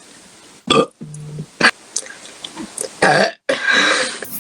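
A girl or young woman burping several times: a short loud burp just under a second in, a low, drawn-out one right after it, and a longer loud burp near the end.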